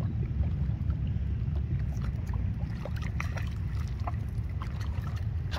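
Wind rumbling steadily on the microphone, with faint splashes from a hooked catfish thrashing at the surface of the river beside the bank.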